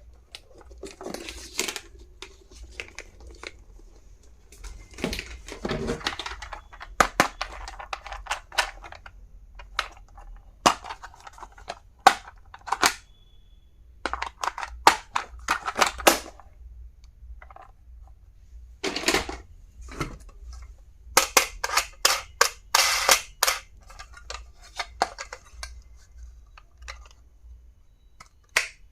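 Stationery and its plastic packaging handled by hand: many sharp, irregular plastic clicks and snaps, such as lids and cases opening and closing, with short stretches of crinkling and rustling.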